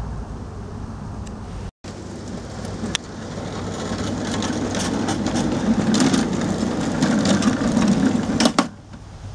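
Miniature garden-railway train running past on its track: a rumble of wheels with scattered clicks, building up from about three seconds in and dropping away sharply near the end.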